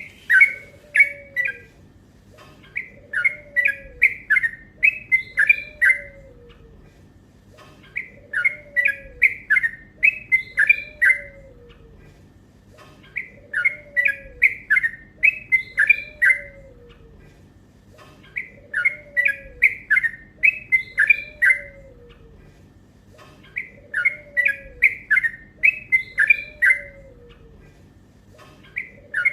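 Yellow-vented bulbul (trucuk) singing in repeated bouts of fast chattering notes, each bout lasting about three seconds with a short pause between, about six times.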